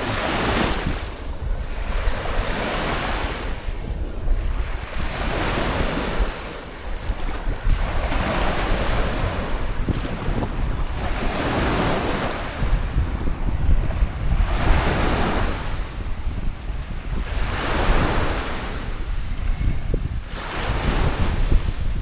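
Lake Huron waves breaking and washing up the beach, one surge every two to three seconds, with steady wind rumbling on the microphone.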